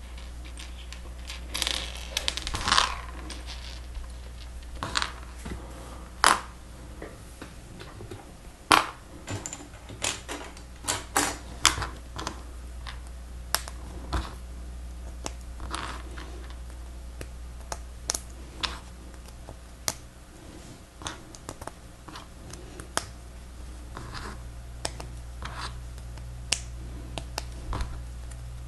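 Plastic Lego Technic pieces clicking and clattering as they are handled and snapped together, irregular sharp clicks with pieces rattling against each other, over a low steady hum.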